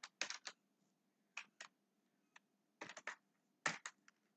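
Computer keyboard being typed on: short, irregular clusters of key clicks with pauses between them.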